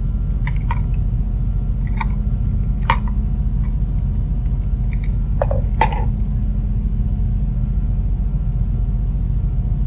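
A few light clicks and knocks as the opened plastic LED bulb housing and its driver board are handled and set down, with a sharper knock about six seconds in, over a steady low background hum.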